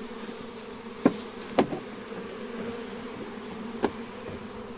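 A honey bee swarm buzzing steadily at close range, with three sharp knocks: two close together about a second in, and one near the end.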